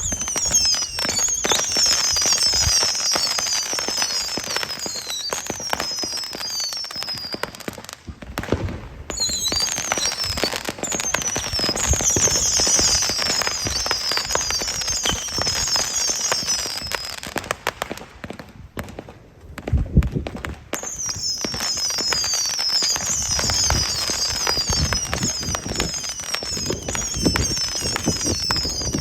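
Brothers 'Mechanical Bug' firework cakes firing in rapid succession: dense crackling with many short, overlapping falling whistles. The whistling breaks off briefly about a third of the way in and again about two-thirds in, where a loud bang comes before it starts up again.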